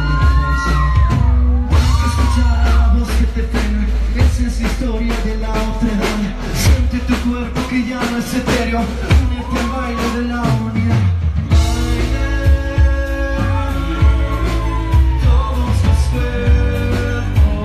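Live band performance with a male lead singer over drums, bass and keyboards, heard from within the audience.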